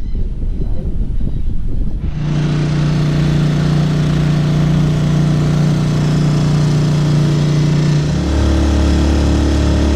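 Honda outboard motor on a dinghy running steadily under way, its note shifting lower about eight seconds in.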